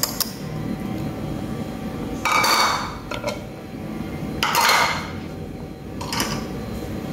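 Kitchen handling sounds around a pot of cake batter: a few light clinks of a bowl against the pot as caramel is poured in, then three short hissing noises about two, four and a half and six seconds in.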